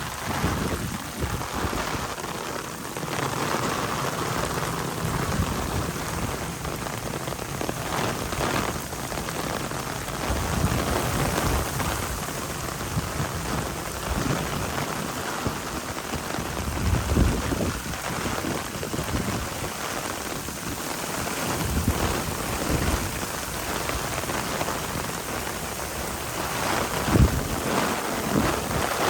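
Heavy typhoon rain pouring steadily, with low rumbling gusts of wind swelling and fading every few seconds.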